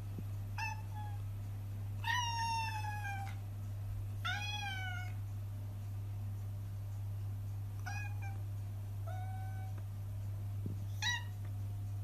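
Black-and-white domestic cat meowing, about six separate calls of different lengths; the longest, about two seconds in, is drawn out and falls in pitch. A steady low hum runs underneath.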